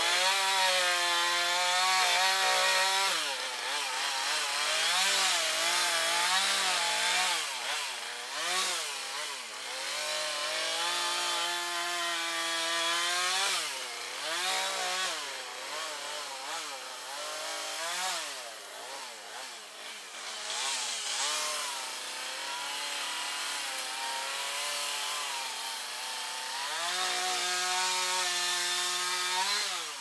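Gas chainsaw running close by, its pitch repeatedly rising and dropping as it revs up and bogs down under load while cutting gum wood. It stops right at the end.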